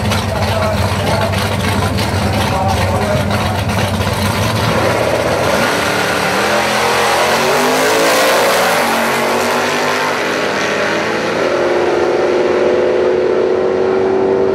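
Drag-race cars, including a red Ford XY Falcon, idling on the start line, then launching with engine pitch climbing hard for several seconds. A gear change drops the pitch about eleven seconds in, and it climbs again.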